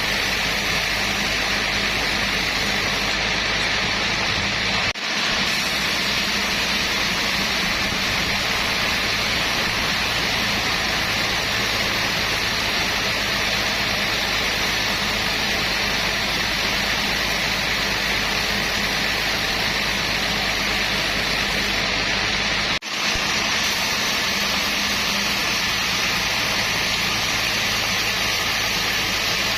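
Sawmill machinery running steadily: a loud, even rushing noise over a low hum. It is broken by two brief dips, about five seconds in and again about three-quarters of the way through.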